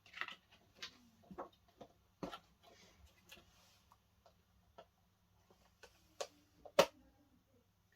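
Scattered light clicks and taps of box packaging being handled as an item is lifted out of the bottom of a box, with the sharpest tap near the end.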